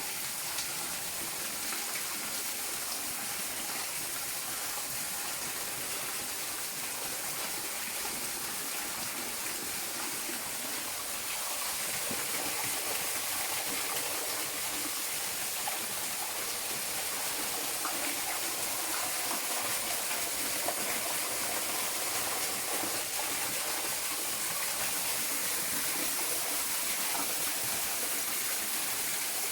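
Steady rush of running water in a mountain stream, growing a little louder about twelve seconds in.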